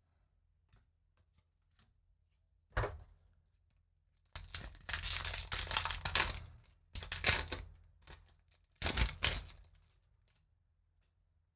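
Foil wrapper of a Magic: The Gathering booster pack being torn open and crinkled by hand. A brief rustle comes first, then from about four seconds in several bursts of ripping and crinkling over about five seconds.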